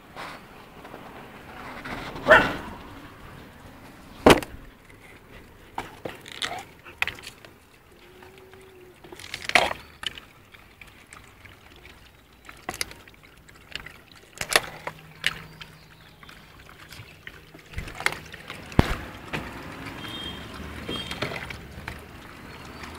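Scattered sharp knocks and rustling handling noise from plastic bags and plastic food containers, with sloshing of liquid food as puppies eat from plastic bowls.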